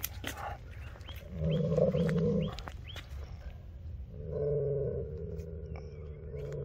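A dog growling low and drawn out, twice: a short, loud growl about a second and a half in, then a longer one starting about four seconds in.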